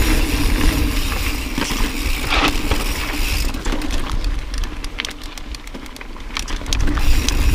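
2013 Santa Cruz Tallboy LTc mountain bike descending a dirt and rock trail: tyres rolling and crunching over the ground, with wind rumbling on the microphone. Rattling clicks from the bike over rough ground come thicker in the second half.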